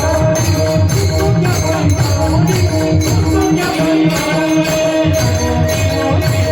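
Devotional kirtan music: jingling percussion strikes in a steady beat over drumming and held melody notes. The drumming drops away briefly about four seconds in, then returns.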